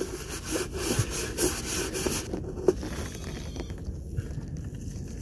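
Rag rubbing back and forth over a plastic hydraulic fluid reservoir, wiping it clean in repeated strokes. The rubbing stops a little over two seconds in, and a single sharp click follows.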